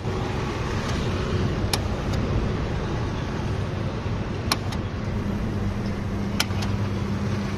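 Steady road traffic noise with a few sharp clicks; a low steady hum joins about two-thirds of the way through.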